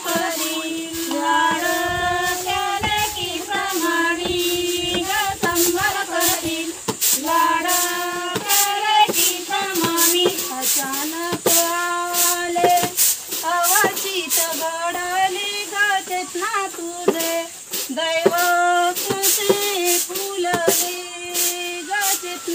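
A Marathi song: a high female voice sings a melody over a steady drone, with regular percussion strikes keeping the beat.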